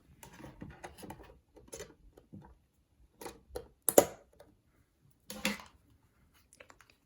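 Irregular clicks, light knocks and short rustles of small objects being handled. The loudest is a sharp knock about four seconds in, followed by a longer rustle.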